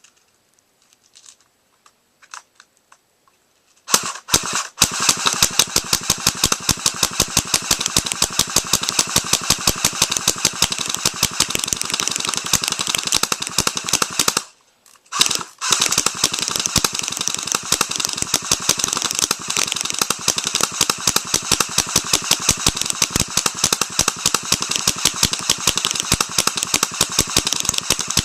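Airsoft guns firing rapid full-auto streams, a fast unbroken run of sharp cracks. It starts about four seconds in and stops for about a second about halfway through.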